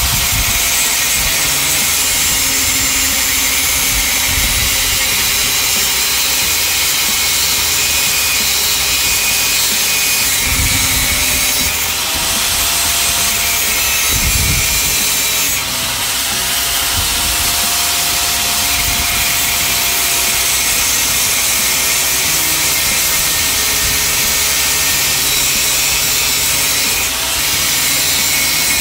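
Angle grinder running steadily with its disc on a metal gate post, a constant high whine over harsh metal grinding noise. The whine dips briefly a few times as the disc is pressed into the metal.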